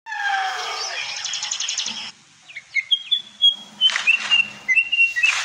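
Birds calling in the wild. In the first two seconds there are falling calls and a quick trill. After a short pause comes a string of clear, held whistled notes.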